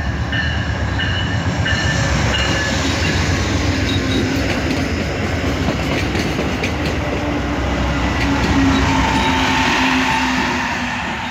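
Amtrak passenger train led by a GE Genesis P42 diesel locomotive, its horn sounding for about the first two seconds, then the train passing close by with a loud rumble and the clicking of wheels over the rail joints.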